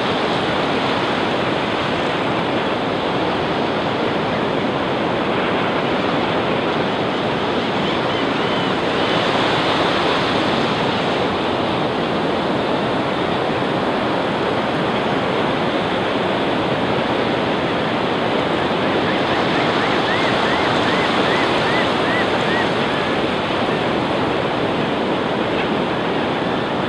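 Surf washing steadily onto a flat sandy beach, a continuous rush of waves. Twice, about a third of the way in and again about three quarters through, faint quick runs of bird calls are heard over it.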